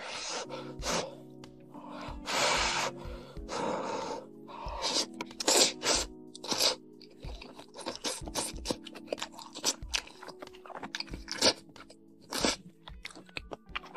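Braised noodles slurped in several long drawn-in sucks during the first five seconds, then close-miked chewing with many short wet clicks, over quiet background music.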